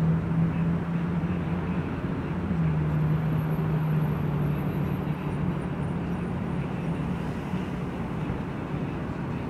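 An engine running steadily, a low droning hum over a noisy background, which drops slightly in pitch about two and a half seconds in.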